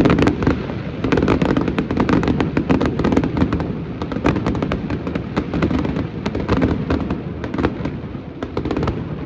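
Fireworks display in a dense barrage: many rapid sharp bangs and crackles, several a second, over a continuous booming rumble.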